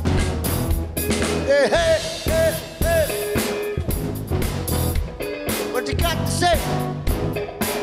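Funk band playing live: drum kit with regular snare hits under electric guitar, with sliding, bending melodic phrases about two seconds in and again near the end.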